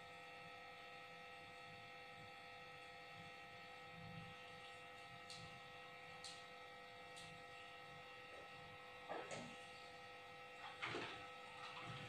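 Faint, steady electrical hum and whine with several held tones. A few faint short clicks come around the middle, and two brief louder scuffling noises come near the end.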